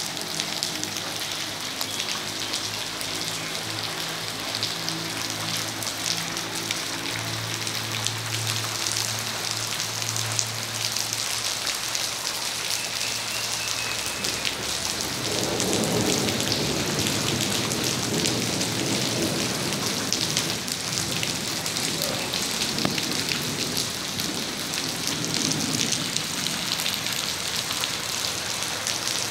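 Steady rain falling on paving and garden foliage, a dense patter. A low steady hum runs under it for about the first half, and from about halfway the rain grows into a fuller, louder rush.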